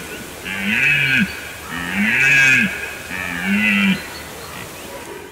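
Red deer stag roaring in the rut: a run of drawn-out bellows, about three in a row, each rising and then falling in pitch.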